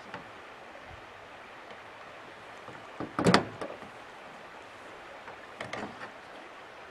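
Lead .454 balls being pressed into the chambers of a cap-and-ball revolver cylinder with a loading stand: a short cluster of clicks and knocks about three seconds in, and a smaller one near the end.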